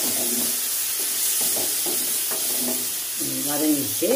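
Onions, tomatoes and green chillies frying in oil in an aluminium kadai, a steady sizzle, while a flat spatula stirs and scrapes them around the pan.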